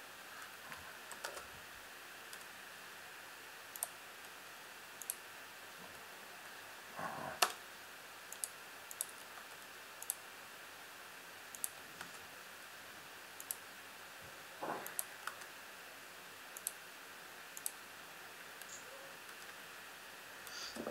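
Computer mouse clicks and keyboard taps, single sharp clicks every second or so, over faint room hiss. Two soft rustles come about 7 and 15 seconds in, and the sharpest click comes just after the first.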